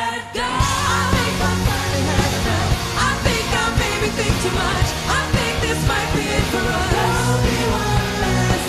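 Live pop-rock band playing, with a woman singing lead and backing singers, over drums and bass guitar. The band drops out for a moment at the start, then comes straight back in.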